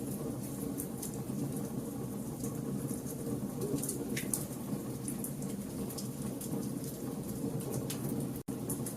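Campfire burning with a steady low roar, dotted with frequent sharp crackles and pops of burning wood. The sound cuts out for an instant near the end.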